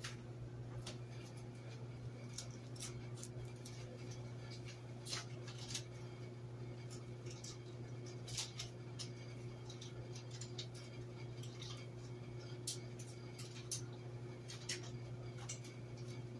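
Scattered, irregular light clicks and taps over a steady low hum.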